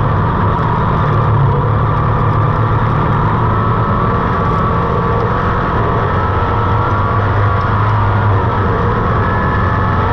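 Race buggy's engine running hard under load, its pitch shifting up and down as the car is driven, over a steady rush of tyre and dirt noise. Heard close up from beside the rear suspension and engine.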